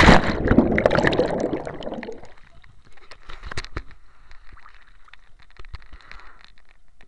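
Water bubbling and gurgling around an action camera dunked underwater, loud for about the first two seconds, then softer sloshing with small clicks as the camera rides at the surface.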